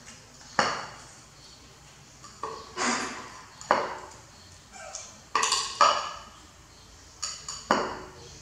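A plate knocking and rattling on a tiled floor as a baby monkey sits and shifts in it: a string of sharp clatters with a brief ring, several coming in quick pairs.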